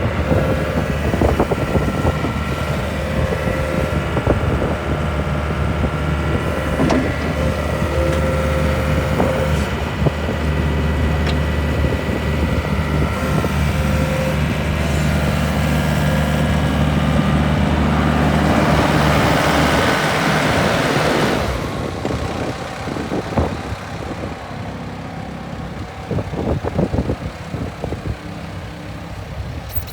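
Mustang 1650R skid steer loader's engine running steadily. A louder hissing rush builds for the last few seconds before the engine sound drops away about 21 seconds in, leaving fainter scattered knocks and rustling.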